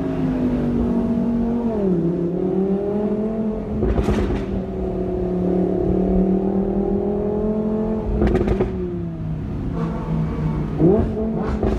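V10 supercar engine running at moderate revs. Its pitch drops about two seconds in, climbs slowly, falls again after about eight seconds and rises sharply near the end. Clusters of sharp exhaust crackles come around four seconds, around eight seconds and near the end.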